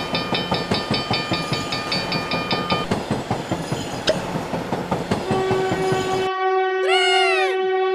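Cartoon train sound effect: fast rhythmic chugging with a held horn chord over the first three seconds, stopping suddenly about six seconds in. A steady whistle tone follows, with a pitch that swoops up and back down near the end.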